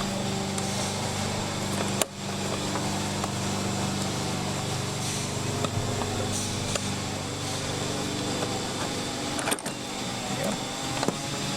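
A steady mechanical hum, with a sharp click about two seconds in and a few light knocks near the end.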